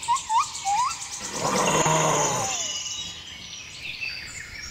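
Birds calling: a run of short rising chirps in the first second, then a longer call that falls in pitch, with high rapid twittering.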